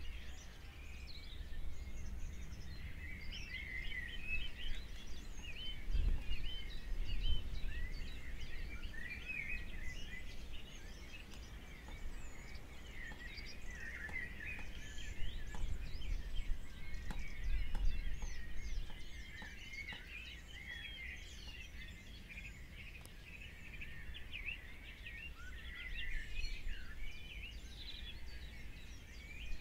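Many small birds chirping and twittering in a dense, continuous chorus over a low rumble.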